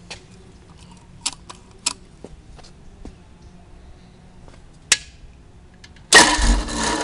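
Light metallic clicks from the twin-carburetor throttle linkage of a Ford flathead V8 being worked by hand, then about six seconds in the cold engine fires with a sudden loud burst and keeps running.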